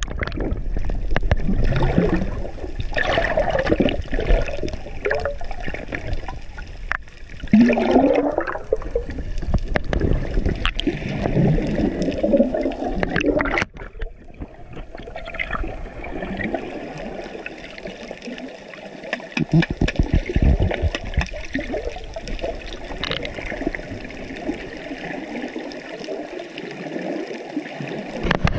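Muffled gurgling and sloshing of water heard underwater through a GoPro's waterproof housing. It comes in louder surges through the first half, then turns softer and steadier.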